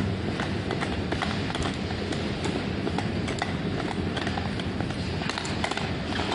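Supermarket background noise: a steady din with a low hum and rapid, irregular light clattering.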